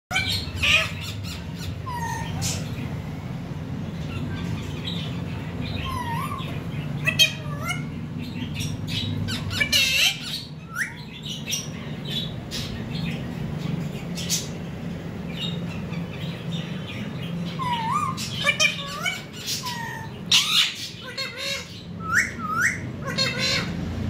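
Rose-ringed parakeets squawking and chirping off and on, with several short calls that rise in pitch, over a steady low hum.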